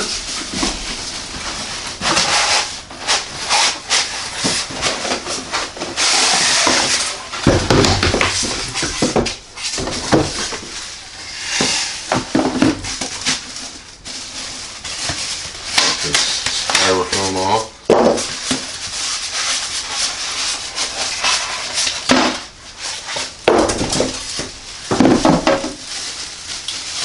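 Unboxing handling noise: plastic wrap crinkling and rustling, with cardboard and styrofoam packaging rubbing and knocking in irregular bursts as parts are lifted out of a box.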